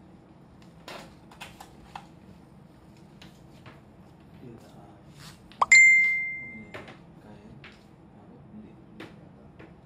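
A single loud, high ding about halfway through, ringing for about a second and then cutting off, among scattered light clicks and knocks from handling.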